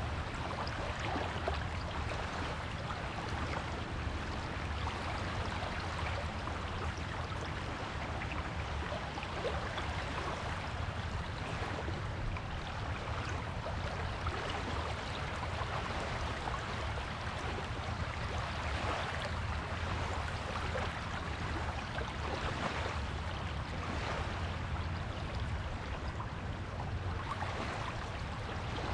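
Sea surf washing on a beach: a steady rush of water noise that swells now and then, with a steady low rumble underneath.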